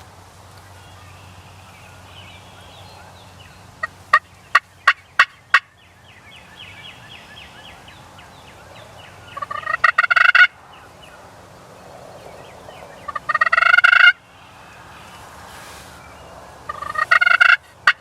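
A wild turkey gobbler gobbling three times, loud and close, each gobble a rapid rattling call lasting about a second. About four seconds in, a quick run of five short, sharp notes comes first.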